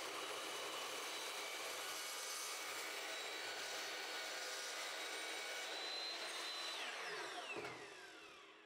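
Evolution EVOMAX metal-cutting chop saw with a ceramic carbide blade cutting through 1/4-inch angle iron: a steady grinding cut with a faint high whine. Near the end the cut finishes and the motor winds down quickly, its pitch falling, as the electronic brake stops the blade.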